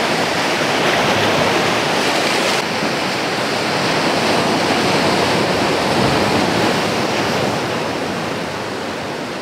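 Ocean surf breaking and washing over shoreline rocks: a loud, steady rush of water without let-up.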